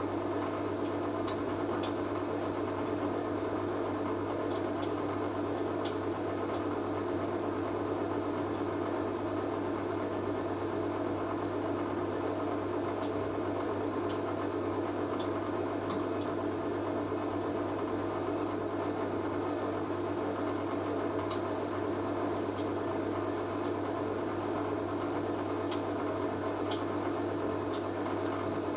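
Hoover A3060 Electronic 1100 washing machine running its anti-tangle tumble after the final spin, with its motor giving a steady hum and a few faint clicks.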